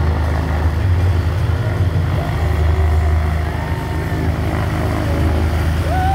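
Single-engine high-wing Cessna light aircraft taxiing: its piston engine and propeller running at low taxi power, a steady low drone.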